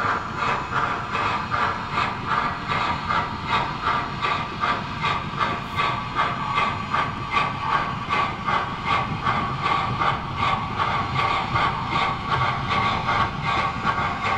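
Sound system of an HO scale MTH Erie Triplex model steam locomotive playing a steady, even-paced steam chuff with hiss as the locomotive runs under way.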